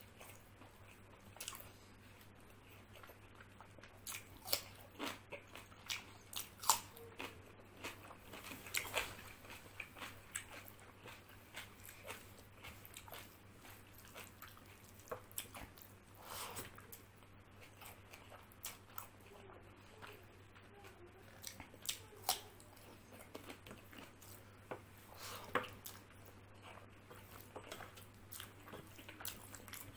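Close-up chewing and biting sounds of a person eating rice, chickpeas and raw cucumber by hand, with irregular wet clicks, smacks and crunchy bites, over a steady low hum.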